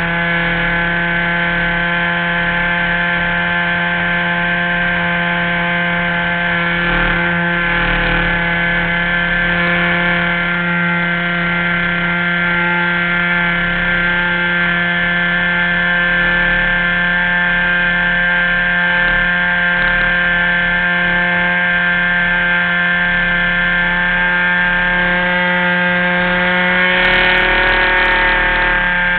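RC model airplane's engine running steadily at constant throttle, heard close up from a camera mounted on the plane, with a brief change in pitch near the end.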